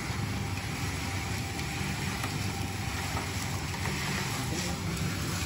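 Rotating drum roaster frying crackers in hot sand over a fire, running with a steady low rumble under an even hiss.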